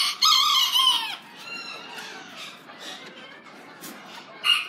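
Bantam rooster crowing, the call falling away and ending about a second in, followed by fainter calls from the pens.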